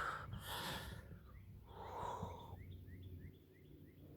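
A small bird calling in a run of short, rising chirps, about three a second, over faint breathing.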